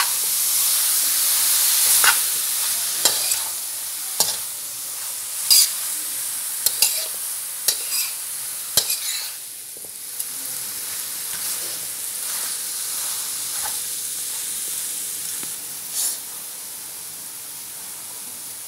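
Bone-in beef sizzling in a hot spice masala in a pan while a steel spatula stirs it, the spatula scraping and clacking against the pan every second or so. The sizzle eases off about halfway through, and after that the clacks are fewer.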